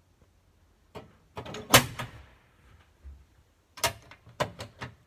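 Hinged metal cover of a breaker panel being handled: a series of sharp metallic clicks and knocks, loudest about two seconds in, with a few more clicks near the end.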